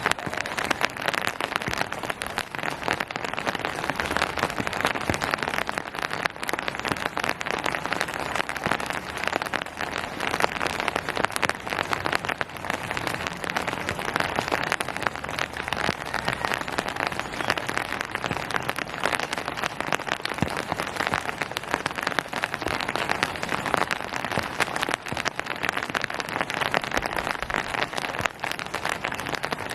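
Steady rain falling on hard surfaces and foliage, a dense continuous patter of many fine drop impacts.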